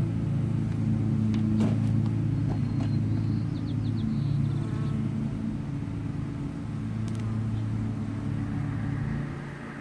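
Honeybees humming around an open hive during a frame inspection: a steady low drone that fades about nine seconds in.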